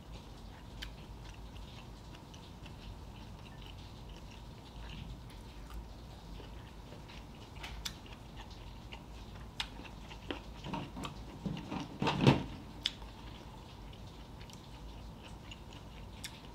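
Close-miked chewing of a mouthful of sauce-coated broccoli: soft wet mouth clicks and crunches, with a louder cluster of chewing sounds about ten to twelve seconds in.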